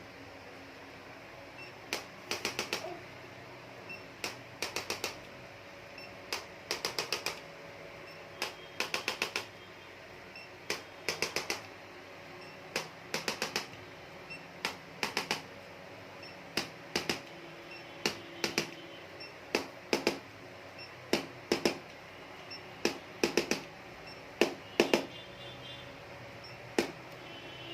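Sharp clicks or taps in quick runs of three to five, repeating every one to two seconds.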